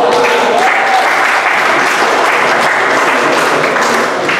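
Spectators applauding at the end of a squash rally, a steady clapping with a voice or two calling out in the first second.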